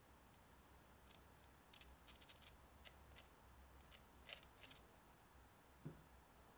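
Faint, short clicks and light dabbing of a silicone pastry brush spreading egg wash over raw scone dough, with a soft low thump near the end.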